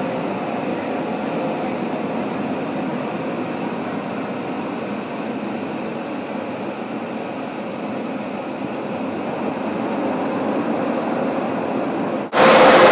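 Automatic touchless motorcycle wash running: a steady hiss and hum of the overhead spray jets misting the bike. About twelve seconds in it cuts off suddenly to a much louder, brighter rush of air from the drying blowers.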